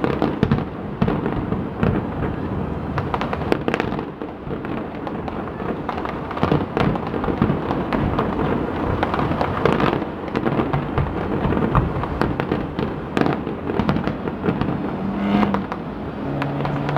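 Fireworks display: aerial shells bursting in quick, irregular succession, a continuous run of bangs, booms and crackling.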